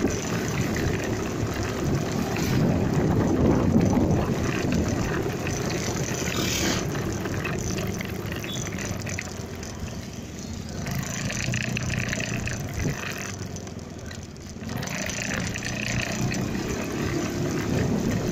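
Motorcycle riding sound picked up by a phone used as a dashcam: the engine running under steady rush of wind and road noise on the microphone. The level dips briefly twice, about ten and fourteen seconds in.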